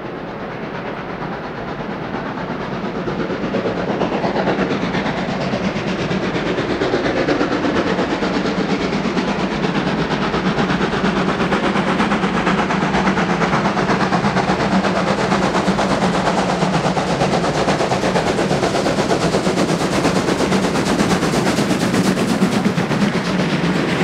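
Steam locomotive hauling a passenger train, working hard with fast, closely spaced exhaust beats, growing louder over the first few seconds as it approaches. It then passes close, with the coaches' wheels rumbling and clattering on the rails.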